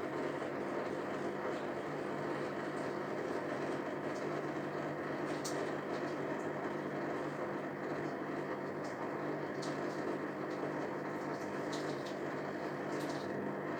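Hoover/Zerowatt Performa 1000 washing machine running with a steady hum and faint occasional ticks. It has detected a suds overload after its spin choked on foam.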